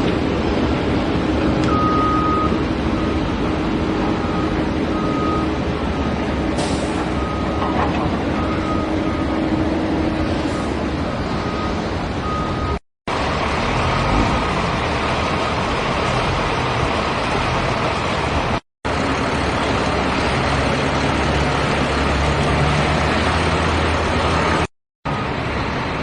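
Heavy diesel vehicle engine running, with a reversing alarm beeping about once a second through the first half. The sound drops out briefly three times.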